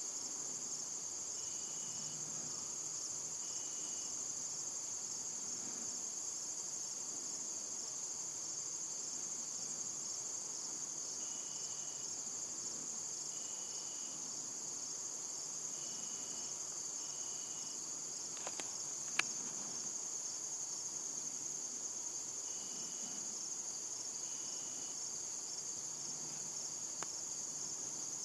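Steady high-pitched chorus of crickets, with faint short high notes every few seconds and a single sharp click about two-thirds of the way through.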